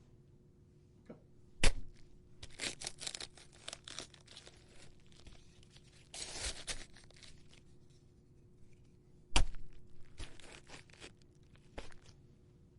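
A head of cabbage being stabbed for a gore stabbing effect: two sharp thuds, about two and nine seconds in, each followed by crunching and tearing of the leaves, with a smaller crunch in between.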